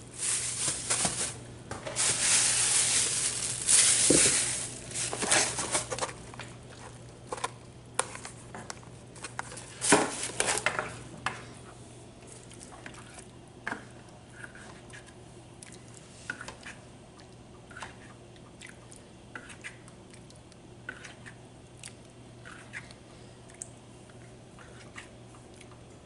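Plastic bag crinkling loudly for the first several seconds, then a spoon working through chicken curry in a nonstick pan, with a sharp knock about ten seconds in and light scattered clicks and scrapes after that.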